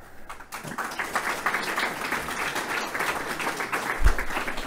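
Audience applauding, building up over the first second and then holding steady, with a single low thump about four seconds in.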